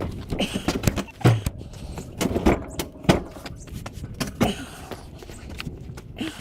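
A heavy refrigerator being wrestled onto a pickup truck's tailgate: a string of knocks and thuds with scraping in between.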